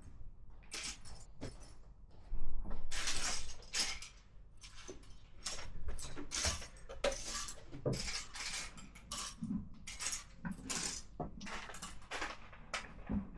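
LEGO pieces and their packaging being handled: irregular clattering and crinkling of small plastic parts, loudest a couple of seconds in.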